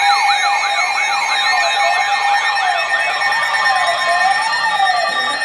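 Electronic siren in a fast yelp, its pitch sweeping up and down about three times a second, then slowing to a slower wail and fading out near the end.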